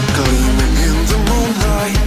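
Rock cover song with a heavy beat and a wavering melody line gliding over it.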